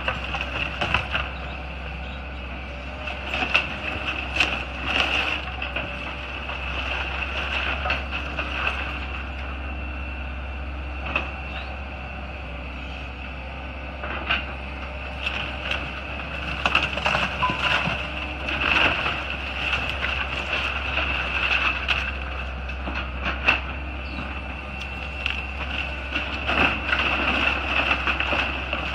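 Case crawler excavator demolishing a wooden house: the diesel engine runs steadily with a high whine through it, while repeated cracks, crunches and crashes of splintering timber and falling debris come at irregular moments.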